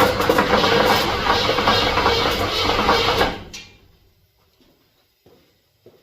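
Chevy C10 V8 being cranked by its starter motor, jumped with a screwdriver: the engine turns over steadily but does not fire, as the ignition is not working yet. The cranking stops about three and a half seconds in.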